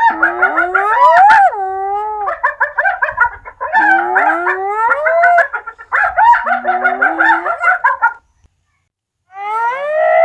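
Several hyenas calling at once: long rising and falling whoops overlap with rapid, chattering giggles. After a break of about a second, one more rising whoop comes near the end.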